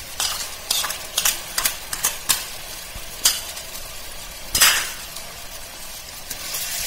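A metal spoon stirring and knocking against an iron kadai while shallots and ginger-garlic paste fry in oil, over a steady sizzle. Sharp clicks come every half second or so, the loudest about four and a half seconds in, and the sizzle swells near the end.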